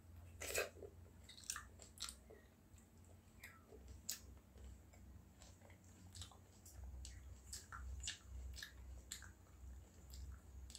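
A person chewing food with the mouth close to the microphone: scattered soft wet clicks and crunches, the loudest about half a second in, over a low steady hum.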